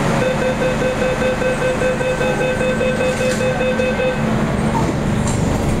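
MTR K-Train door-closing warning beeping rapidly for about four seconds as the sliding saloon doors shut, over the train's steady low hum.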